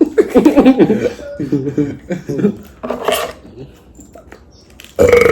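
Loud, indistinct human voices, shouting or laughing, with a short noisy burst about three seconds in and another loud burst near the end.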